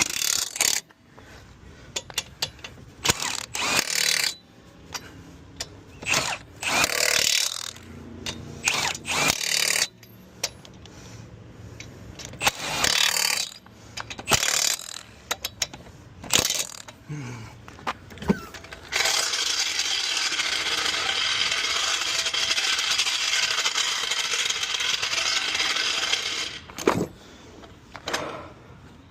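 Impact wrench on a car wheel's lug nuts during a roadside tire change: many short bursts, then one continuous run of about seven seconds near the end.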